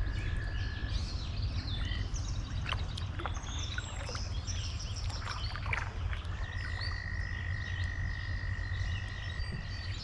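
Wild animal calls: many short high chirps, and one long steady high note held through the last few seconds, over a steady low rumble.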